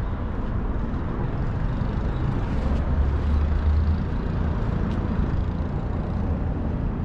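Street traffic, with a motor vehicle passing close by: its low engine rumble swells about three seconds in, then eases back into the steady traffic noise.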